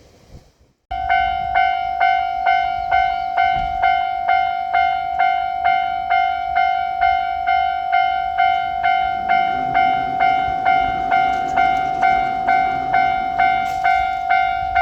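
Japanese level-crossing alarm ringing its electronic bell, an even 'kan-kan' of about two strokes a second that starts abruptly about a second in. A faint low rumble joins beneath it in the second half.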